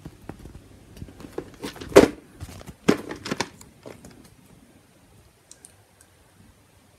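Plastic VHS tape case being handled and turned over in the hand: a run of clicks, knocks and crackles, the loudest two about two and three seconds in, thinning to a few faint ticks after about four seconds.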